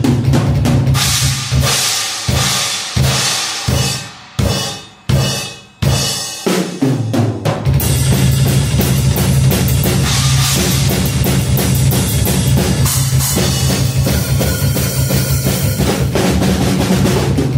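Drum kit being played: cymbals and snare over a kick drum whose sound comes from a piezo trigger firing a BOSS DR-220A drum machine through the PA. A few separate hits are left to ring out with short gaps between them, then from about halfway a fast, unbroken run of kick-drum hits runs under crashing cymbals.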